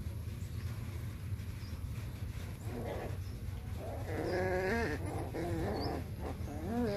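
Puppies play-fighting, giving high whining yelps that rise and fall in pitch: one about three seconds in, a longer wavering one around four to five seconds, and another near the end, over a steady low hum.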